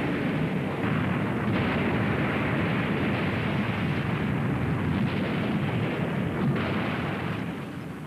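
Glacier ice front calving: a long, continuous rumble of ice crashing down into the sea, dying away near the end.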